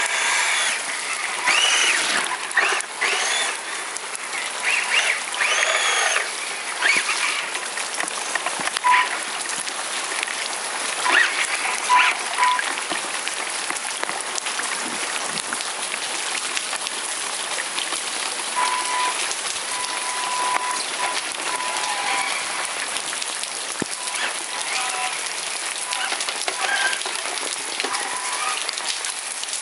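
Steady rain falling on flooded pavement, pattering on standing water. A few short sounds that rise and fall in pitch stand out over it in the first few seconds and again about eleven seconds in.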